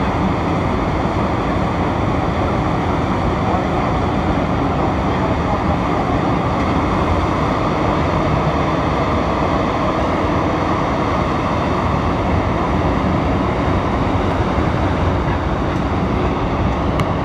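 Montreal metro MR-73 rubber-tyred train running through the tunnel, heard from inside the car: a loud, steady running rumble that carries on as the train reaches a station platform near the end.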